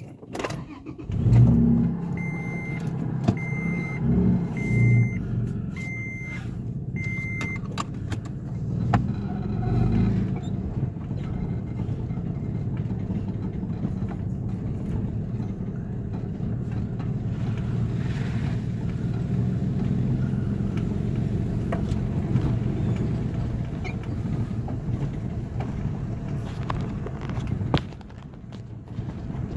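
A Toyota FJ Cruiser's 4.0-litre V6 engine starts about a second in. A dashboard warning chime beeps five times at even spacing, and then the engine runs steadily, with cabin and road noise, as the vehicle drives slowly along a dirt trail.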